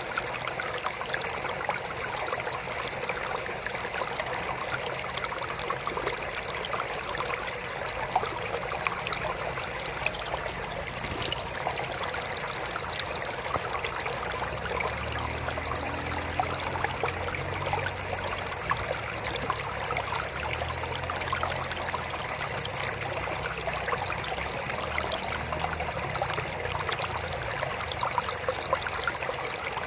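Water trickling steadily into a mini aquarium, a continuous splashing patter. A faint low hum comes and goes through the second half.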